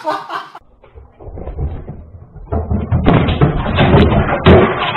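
A rapid, irregular series of thumps and bangs, heard through a security camera's muffled, narrow-band microphone. It starts soft and gets loud about three seconds in.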